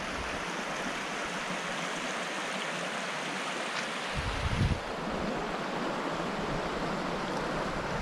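Shallow creek running over rocks and rubble, a steady hiss of flowing water, with a brief low rumble a little past halfway.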